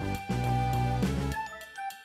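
Instrumental background music with sustained melody notes over a bass line; the bass drops out for a moment near the end.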